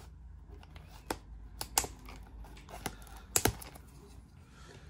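Cardboard trading-card blaster box being handled and its plastic wrap cut open: a few scattered sharp clicks and taps, with the loudest two about two seconds and three and a half seconds in.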